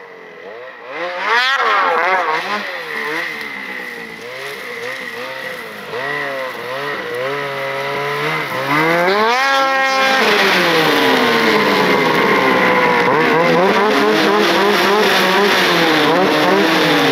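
Snowmobile engine revving on and off, its pitch rising and falling with the throttle and getting louder as the sled comes closer. About nine seconds in it climbs steadily to high revs, then stays at high, uneven revs.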